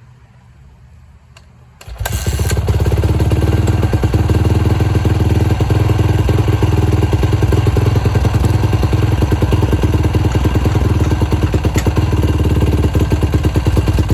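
Modified 2008 Honda CRF450R's single-cylinder four-stroke engine, with a big bore kit and FMF exhaust, starting from cold: it catches about two seconds in and then runs steadily with a rapid, even firing beat.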